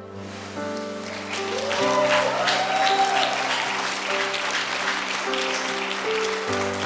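Congregation applauding, swelling about a second in, over soft sustained keyboard music.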